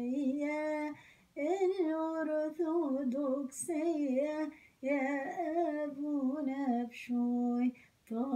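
A woman singing an Arabic hymn solo and unaccompanied, in short held-note phrases broken by brief pauses for breath.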